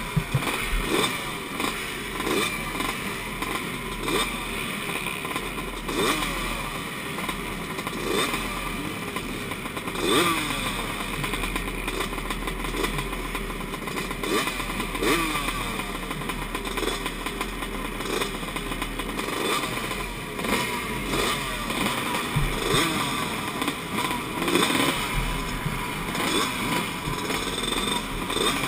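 A line of motocross bikes idling at the starting gate before a race start. Their throttles are blipped again and again, so engines rev up and fall back over a steady running noise.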